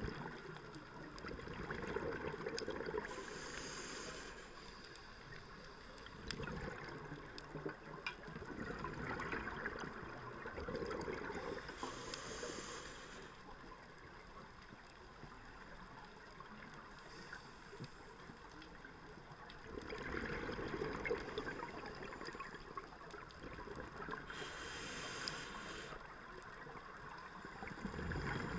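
Scuba diver breathing through a regulator, heard through a GoPro camera's underwater housing: slow cycles of hissing and bubbling that swell and fade about every ten seconds.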